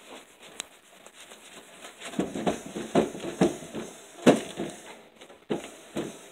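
A kitchen knife sawing through a baked pizza's crisp crust onto the cardboard box beneath, in a string of irregular crunching strokes. The strokes are faint at first and louder from about two seconds in.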